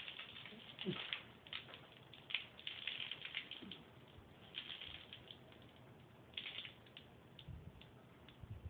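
Carbonated soda splashing and dripping in irregular spatters as it is poured over a person's head and runs off onto the shirt and floor.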